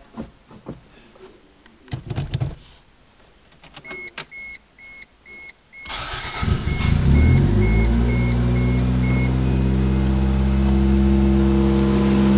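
A few knocks and a row of short beeps, then the Toyota Corolla GTS's 4A-GE four-cylinder engine cranks and starts about six seconds in and settles into a steady idle. Its exhaust is temporarily patched with hose clamps and still leaks slightly.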